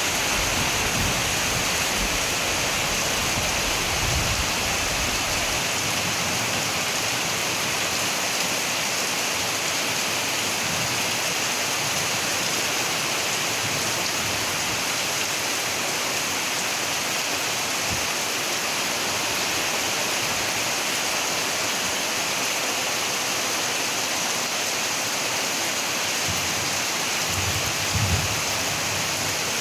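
Steady rushing water noise that does not change, with a few low bumps, one near the end.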